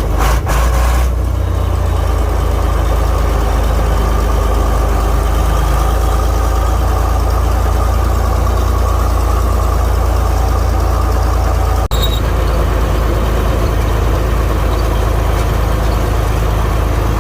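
Diesel tractor engine running steadily while pulling a loaded manure spreader, with a steady high whine over the low drone.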